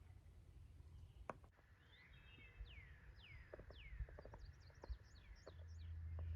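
Faint songbirds singing in the woods: a few clear downward-slurred whistles followed by a run of short high chirps, with scattered light clicks and a low rumble building near the end.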